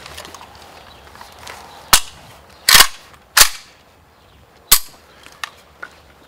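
Kalashnikov-pattern rifle being handled and its action worked: four loud, sharp clacks spread over about three seconds, the second one a little longer, then two fainter clicks.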